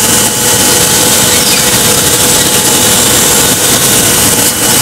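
Banbury internal mixer running: a loud, steady mechanical noise with a hiss and a few steady whining tones through it.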